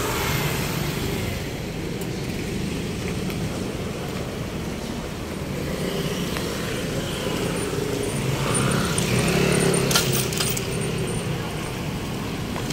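Steady road traffic with vehicle engines running; one engine comes up louder from about eight seconds in, and there is a brief clatter of sharp clicks around ten seconds in.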